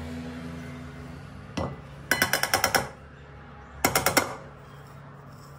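A drinking glass knocked against a bowl to shake out the last of the ground walnuts: one tap, then a quick run of about eight sharp taps, and after a short pause another run of about five.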